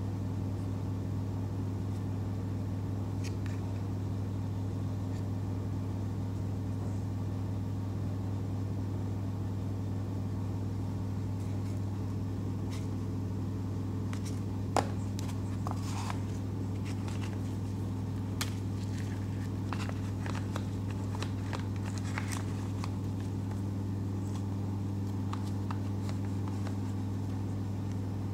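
A steady low hum, with scattered light clicks and rattles from handling the camera's plastic case and packaging in the second half, one sharper click about halfway.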